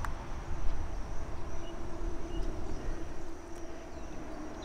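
Outdoor ambience in the bush: a steady high insect drone with a low rumble of wind on the microphone and a faint steady hum underneath.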